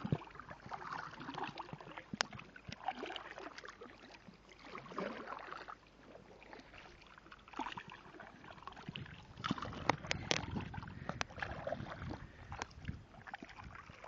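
Double-bladed kayak paddles dipping and splashing through calm water in uneven strokes. There are a few sharp knocks, with several close together about ten seconds in.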